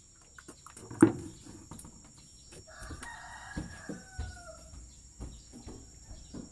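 Machete chopping a slab of pork fat on a wooden chopping block: one loud chop about a second in, then several lighter knocks. A rooster crows once in the middle, its call falling off at the end.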